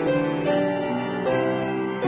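Instrumental piano music, with held notes and chords changing about every half second.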